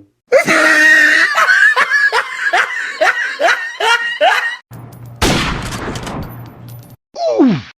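Meme sound-effect clips one after another: a laugh made of a rapid run of rising squeals, then a noisy stretch with a low hum and a sharp crash that fades away, then a short cry falling steeply in pitch.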